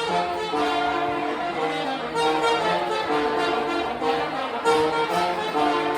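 Live band playing a tune, several sustained notes sounding together in harmony.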